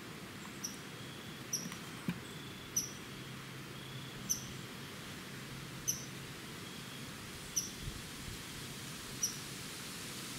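Sharp, high, short chirps from a small animal, about eight of them spaced unevenly roughly a second apart, over a faint even background hiss.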